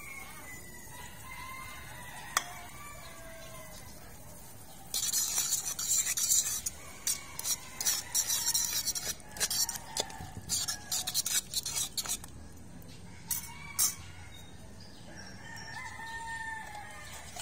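A fork stirring and scraping in a wok of simmering sauce, working in beaten egg, in a quick run of clattering strokes from about five seconds in until about twelve seconds in, with two sharp clicks after. Roosters crow in the background near the start and again near the end.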